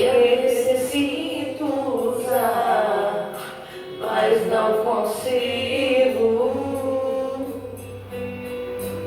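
A singer performing a gospel worship song with a sustained melodic line over instrumental accompaniment.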